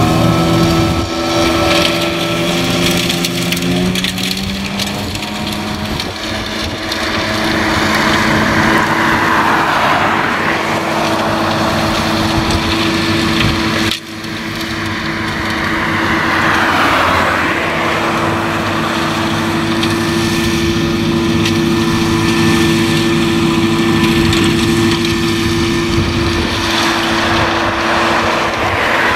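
Tractor engine running under load, driving a rear-mounted flail mulcher through tall grass and weeds: a steady hum with a crushing, chopping noise, its pitch shifting in the first few seconds. Road vehicles swell and fade past three times, around 8, 16 and 27 seconds in.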